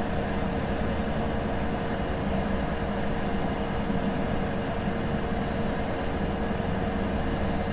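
Budget digital hot-air rework station blowing on airflow setting 3 at 380 °C: a steady rush of air with a steady hum from its fan. It is heating a phone circuit board to melt the solder under a part, a slow job at this setting.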